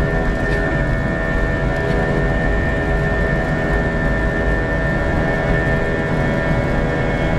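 Airbus A321 jet engines running, heard from inside the passenger cabin as the airliner rolls along the runway: several steady whining tones over a continuous low rumble.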